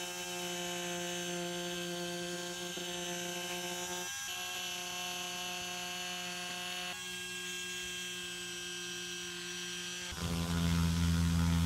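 Electric rotary tool spinning a small abrasive drum against the edge of a leather wallet, sanding down the frayed edge before re-edge coating, with a steady whine. About ten seconds in it turns louder, with a deeper hum.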